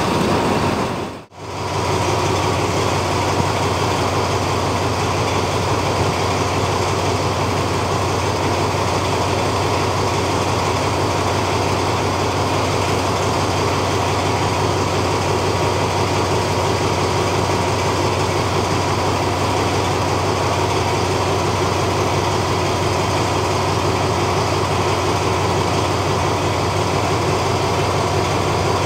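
Diesel-electric locomotive, an Alsthom AHK, idling steadily with a constant hum.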